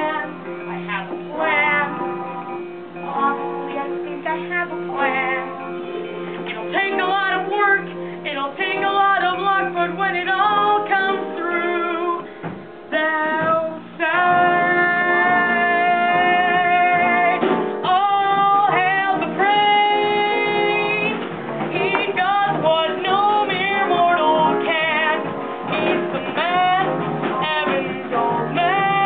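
Teenage cast singing a musical-theatre song live over guitar-led accompaniment, with long held sung notes in the middle.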